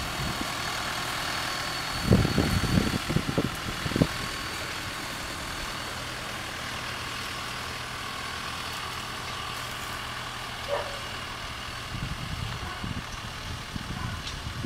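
New Holland T4 tractor's diesel engine running steadily as it drives across the field with a boom sprayer working. A few low thumps break in about two to four seconds in and again near the end.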